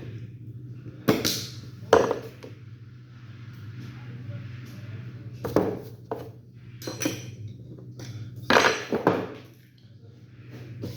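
Metal pistol parts being handled during disassembly of a Glock 17: several sharp metallic clicks and clinks, a second or more apart, some with a short ring, over a steady low hum.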